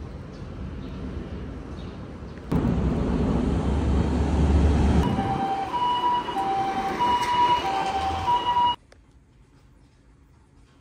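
A Japanese ambulance's two-tone siren alternating between a higher and a lower note about every half second, heard over loud city street traffic. It starts about halfway in and cuts off suddenly near the end.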